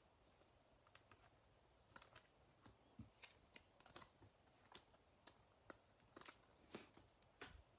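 Faint, scattered clicks and rustles of baseball cards being handled and laid down on a tabletop.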